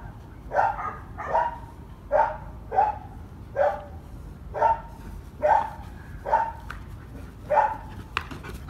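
German shepherd barking repeatedly, about one short bark a second, while it sits waiting for a kong toy held up over it.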